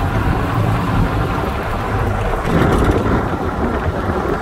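Wind rushing over the microphone of a camera filming from a moving vehicle, with a low, steady rumble of the vehicle underneath. The wind surges louder a little past halfway.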